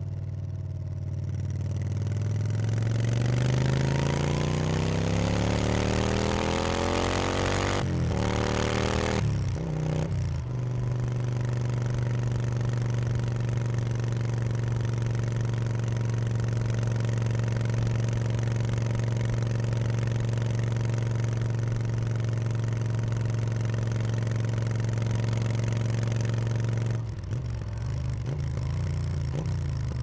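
Yamaha BT1100 Bulldog's air-cooled V-twin under way: the engine note rises for several seconds as the bike accelerates, breaks at two gear changes after about eight seconds, then holds steady at a cruising pace before easing off near the end.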